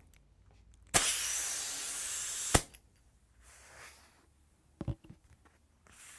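Compressed air from a shop air hose blowing into a bicycle inner tube to inflate it for a puncture check: a sudden loud hiss lasting about a second and a half that ends in a sharp click.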